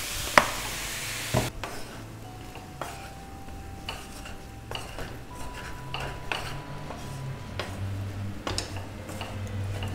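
Rice and vegetables sizzling in a frying pan; the sizzle stops abruptly about a second and a half in. A spatula then stirs and tosses the fried rice, scraping and knocking against the pan at an irregular pace, with one sharp knock about half a second in.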